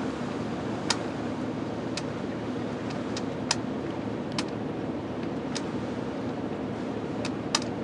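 Steady cab noise of a stationary motorhome idling in strong wind, with a handful of sharp, irregularly spaced clicks.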